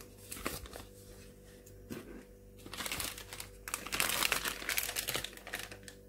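Plastic product packaging crinkling as it is handled, with scattered light clicks and rustles. The crinkling is heaviest from about three to five and a half seconds in.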